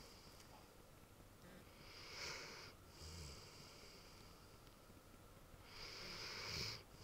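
Rhodesian Ridgeback snoring in its sleep: two stronger, airy snoring breaths, one about two seconds in and one near the end, about four seconds apart, with softer breathing between them.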